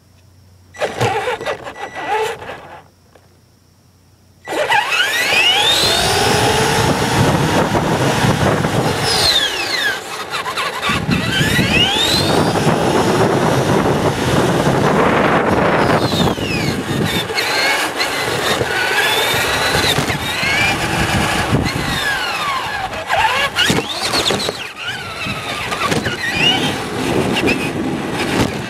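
Traxxas Telluride RC truck driving on asphalt, heard from a camera riding on it: the electric motor's whine rises and falls with the throttle over a steady rumble of drivetrain and tyres. Two short bursts come first, then it runs continuously from about four and a half seconds in.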